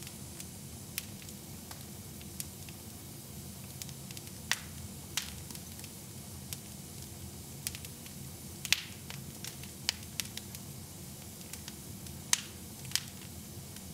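Wood fire burning in a fireplace, crackling with irregular sharp pops over a steady low background; the loudest pops come about two-thirds of the way in and again near the end.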